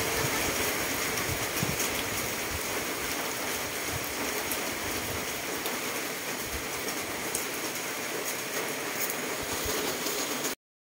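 Steady heavy rain hissing down, then cutting off abruptly near the end.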